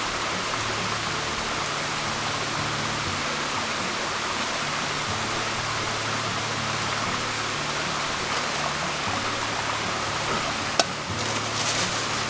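Steady hiss of water, like rain or running water, under soft background music. A sharp click near the end, followed by brief crackling.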